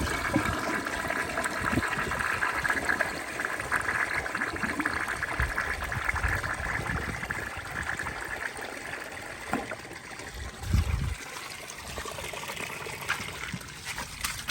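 Crane Santonia toilet flushing: water rushes through the bowl and trapway for several seconds, then slowly dies down to a trickle, with a brief low thump about two-thirds of the way through. It is a sluggish flush that does not like rags, which the owner blames on a very sharp trapway or a defect.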